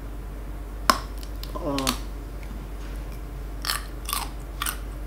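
A crisp bite into a small unripe green fruit about a second in, then a brief falling 'mm' from the eater. Crunchy chewing strokes follow near the end.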